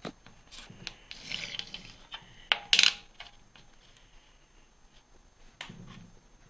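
Liberty Head nickels being turned over by hand on a wooden tabletop: a series of light clicks as the coins tap the wood and each other, with a short scrape as one slides. The loudest clicks come about three seconds in, and one more comes near the end.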